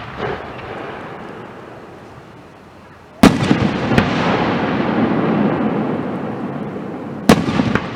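Aerial firework shells bursting: a sharp bang about three seconds in, another a second later and a third near the end. Each is followed by dense crackling that fades slowly.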